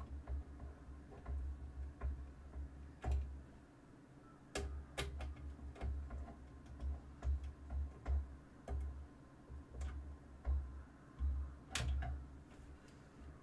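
Screws being driven with a Phillips screwdriver into a metal PC test-bench case: scattered small metallic clicks and ticks at an uneven pace, with dull bumps of hands and tool against the case.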